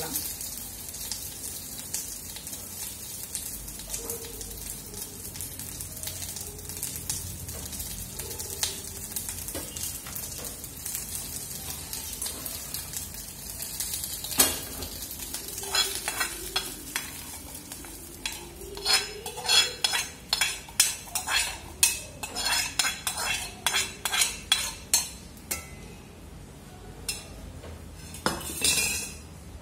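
Thuthuvalai leaves, dried red chillies and spices sizzling as they are dry-roasted in a small iron kadai and stirred with a steel spoon. From about halfway the sizzle gives way to a quick run of sharp clacks and scrapes: the steel spoon knocking against the pan and a steel mixer jar as the roasted mix is scooped across.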